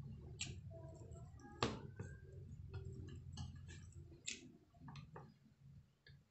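Quiet eating sounds: scattered soft clicks and smacks of chewing, and fingers picking at rice and fried fish on a plate, with one sharper click about a second and a half in.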